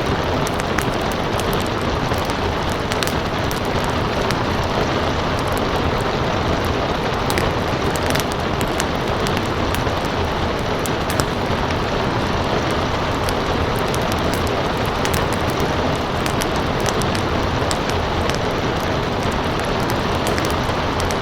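Steady rain falling, with the crackle of a wood fire: many small sharp pops scattered through it.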